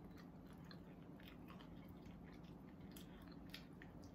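Faint chewing and small soft clicks as fingers pick flesh off a fried fish on a plate, over a steady low hum.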